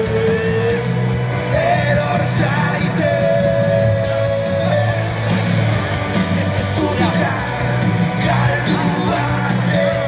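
Live alternative rock band playing electric guitars, bass and drums, with a male singer singing in Basque, half-shouting and holding long notes.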